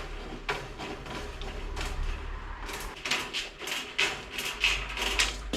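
Hand tin snips cutting through steel mesh sheet: a series of sharp metallic snips, few at first and then coming faster through the second half.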